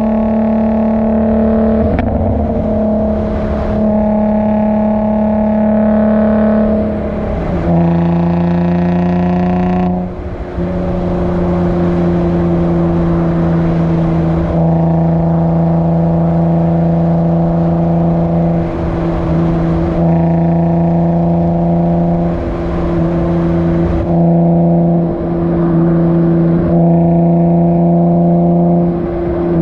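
Infiniti G35's 3.5-litre V6 droning steadily through its aftermarket Motordyne Shockwave exhaust at a cruising pace, picked up close to the tailpipes. The note steps down in pitch about seven and a half seconds in and dips briefly about ten seconds in.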